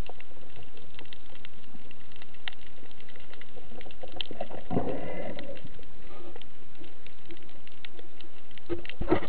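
Underwater sound picked up through a camera housing: a steady hiss with scattered sharp clicks and crackles, typical of snapping shrimp on a rocky reef. About halfway through there is a louder low rushing burst, and a loud sudden sound comes right at the end.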